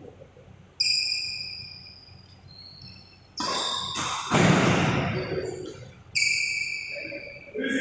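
Badminton rackets striking the shuttlecock in a doubles rally: about five sharp hits a second or two apart, each ringing on and fading over about a second. A louder, rougher burst midway holds a quick exchange of shots and shoe scuffs on the court.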